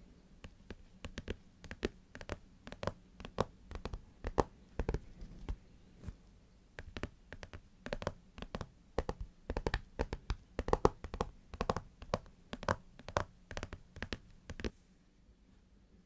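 Fingernails tapping on a cardboard eyeshadow palette: quick, irregular taps in clusters that stop about a second before the end.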